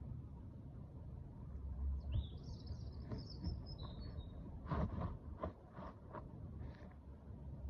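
A bird sings a short high warbling phrase of about two seconds, followed by about five short sharp sounds, over a steady low rumble.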